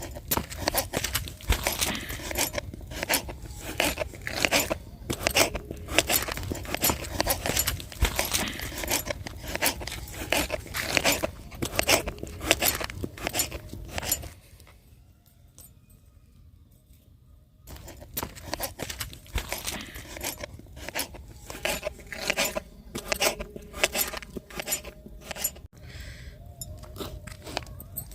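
Metal utensils clinking and scraping against a cooking pot, with crunching, in quick irregular clicks and knocks. The clatter stops for about three seconds halfway through, then picks up again.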